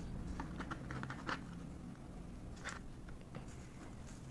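Faint scattered clicks and crackles of hands handling clear slime topped with foam beads and glitter, several in quick succession in the first second or so and another near the middle, over a steady low hum.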